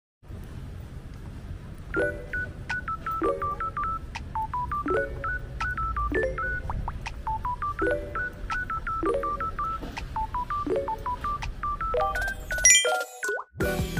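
Background music: a light melody of short, beep-like notes stepping downward over a chord that repeats about every second and a quarter, with a steady low bed underneath.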